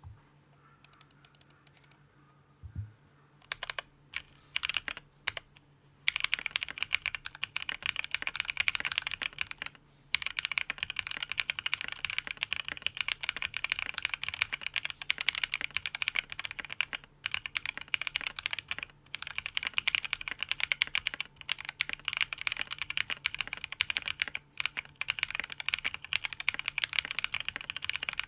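Typing on a Tofu68 mechanical keyboard with TTC Speed Silver linear switches in a tray-mount case with a polycarbonate plate and KBDfans keycaps. A few scattered single keystrokes at first, then from about six seconds in a fast, steady run of key clicks broken by a few brief pauses.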